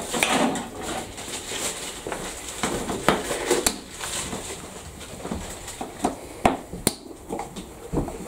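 Scattered clicks, taps and light knocks of hand work on a removed motorcycle fuel tank and the round metal fitting set in it, with a few sharper knocks about three seconds in and again near the end.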